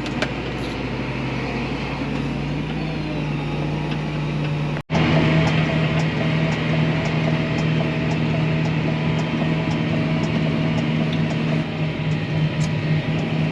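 A vehicle engine running steadily. The sound breaks off sharply about five seconds in and the steady running picks up again straight away, a little louder.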